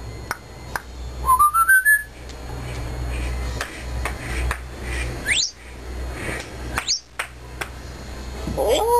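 African grey parrot whistling: a quick run of short notes stepping upward about a second in, then two fast high swoops around five and seven seconds, and a louder call near the end. A low steady hum runs underneath.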